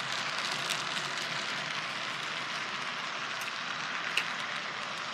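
HO scale model freight cars rolling past close by on the track, a steady rushing of wheels on rail with a few light clicks, one sharper about four seconds in.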